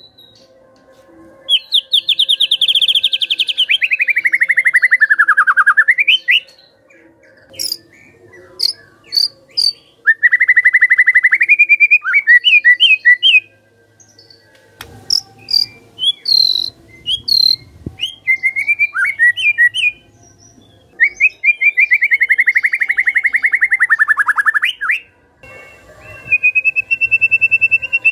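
White-rumped shama (murai batu) singing. It gives long, fast rattling trills (the 'kretekan') that slide down in pitch, and between them come clusters of short, sharp high whistled notes.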